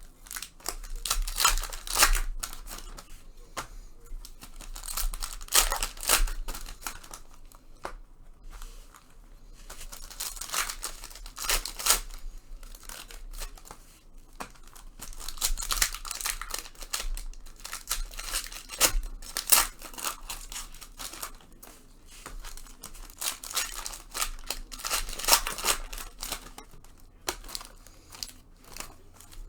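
Panini Prizm basketball trading card pack wrappers being torn open and crinkled, in bursts every few seconds.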